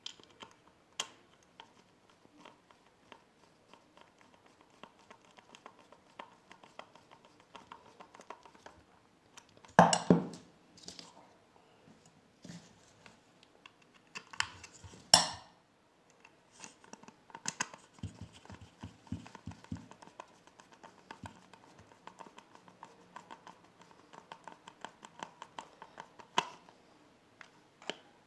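Small clicks, taps and rustles of a hair dryer's plastic housing and internal parts being handled and fitted together by hand, with two sharper knocks about ten and fifteen seconds in.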